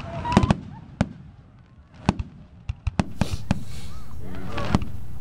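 Fireworks going off: a string of sharp bangs at irregular intervals, with a steady hiss from about three seconds in. Faint voices of onlookers can be heard in between.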